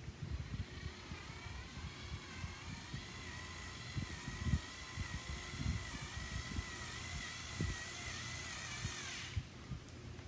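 Small battery-powered screwdriver motor whining steadily as it drives a hose clamp tight on the hose; the pitch sags near the end as the clamp takes up and the motor cuts off suddenly, with light handling knocks throughout.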